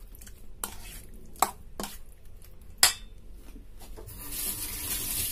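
Metal spoon clinking and scraping against a stainless steel bowl while stirring chicken wings in a thick marinade: four sharp clinks, two of them louder, then about a second of soft hissing noise near the end.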